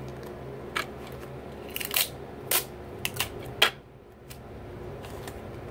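Paper crackling under the hands as a small stuffed paper doll pillow is folded and handled: a handful of short, sharp crackles, the loudest about three and a half seconds in, then quieter.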